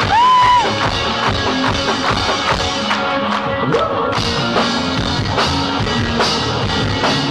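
Live rock band playing loud in a club, drum kit and electric guitar, heard from inside the crowd. A loud, high held note rises and holds for about half a second at the start.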